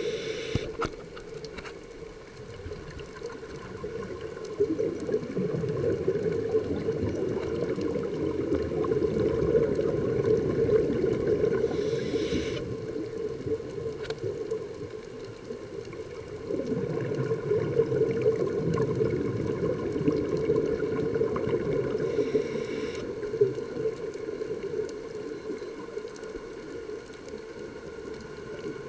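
Underwater scuba breathing: a steady low rush of exhaled bubbles that swells and fades in long, slow waves, with the regulator's brief inhalation hiss three times, at the start, about twelve seconds in and about twenty-two seconds in.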